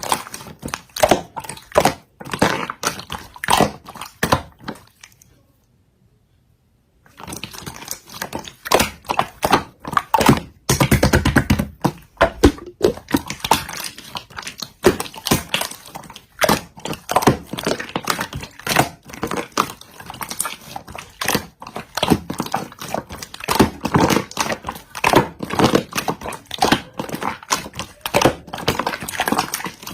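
Slime being squished, poked and stretched by hand, giving a fast irregular run of wet clicks and pops, broken by about two seconds of silence around five seconds in.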